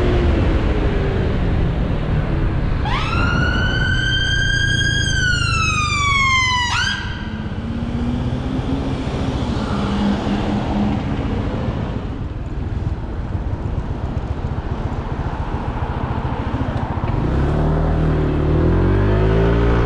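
An emergency vehicle's siren gives one long wail about three seconds in: it rises, holds, then falls and cuts off about seven seconds in. Under it runs the steady engine and wind noise of a Honda PCX 125 single-cylinder scooter in city traffic. Near the end the scooter's engine note rises and falls as it pulls through a turn.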